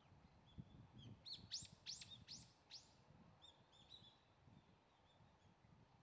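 Small songbirds calling. About a second in comes a quick run of five or six sharp calls, each sweeping steeply down in pitch, with soft short high chirps scattered before and after.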